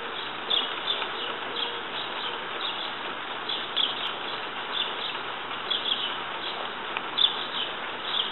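Small birds chirping: short high calls in irregular clusters, several a second, over a steady hiss.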